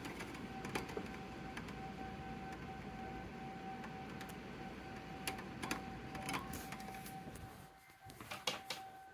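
Distant outdoor tornado warning siren sounding a steady tone over rushing storm noise, with scattered sharp clicks and taps; the rushing noise drops away near the end while the siren tone carries on.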